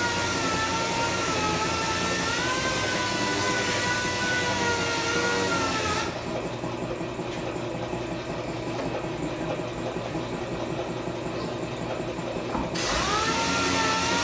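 Electric power tool running with a whine that wavers in pitch. It cuts out about halfway through and spins back up, rising in pitch, near the end.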